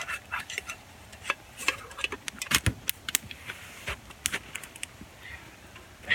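A metal pot of water clinking and rattling as it is handled and set over a campfire: scattered sharp clinks, with a heavier knock about two and a half seconds in.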